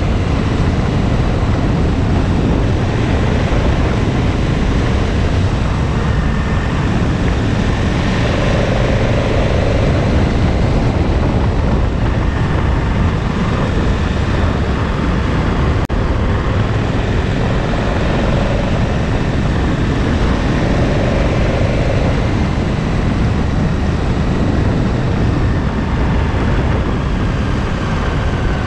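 KTM 1290 Super Adventure's V-twin engine running under way, mixed with wind and road noise on the bike-mounted camera's microphone. The engine note rises and falls a little a few times as the throttle changes.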